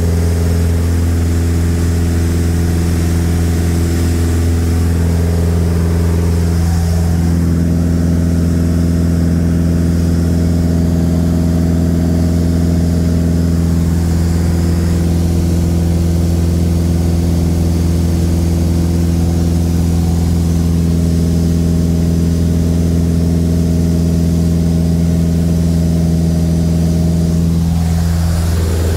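Steady cabin drone of a light single-engine propeller airplane in flight, its piston engine and propeller running at a constant pitch.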